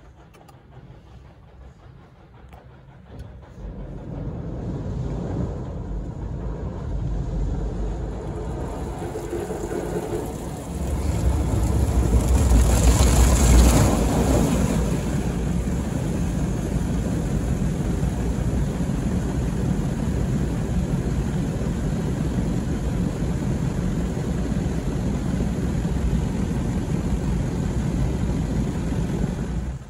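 Istobal in-bay automatic car wash running. Its machinery and spray noise builds about three seconds in, grows louder around eleven seconds with a hissing surge, then holds steady.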